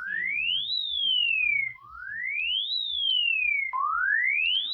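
Emergency alert siren tone: a single pure electronic tone that sweeps quickly upward, then glides more slowly back down, repeating about every two seconds.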